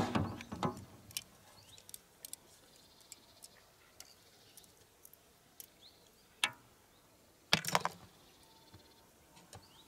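Small clicks and knocks of fishing tackle being handled: a rattle at the start, scattered single ticks, and a louder short clatter about three quarters of the way through. Faint bird chirps sound behind.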